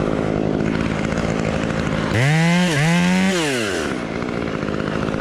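Chainsaw idling, then revved up twice in quick succession about two seconds in before dropping back to idle.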